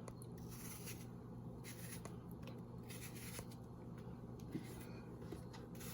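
Faint, irregular scraping strokes of a knife peeling and cutting apples by hand, with a few small clicks.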